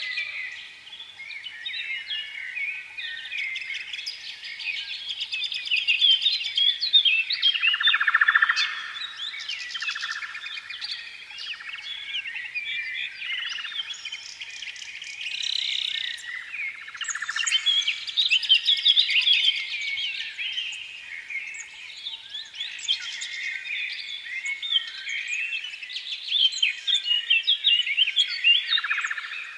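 Many small birds chirping at once, a dense, unbroken chorus of short high calls.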